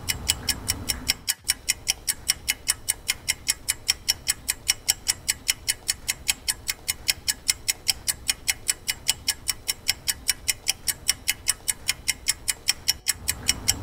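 A clock ticking quickly and very evenly, about five ticks a second, over a faint low hum.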